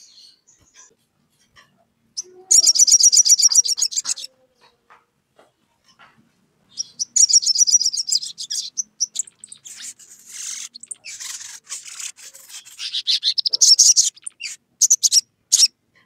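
Male olive-backed sunbird singing in full voice, calling to a rival: three bursts of very fast, high chittering trills, with scattered shorter notes between them and a few sharp single chips near the end.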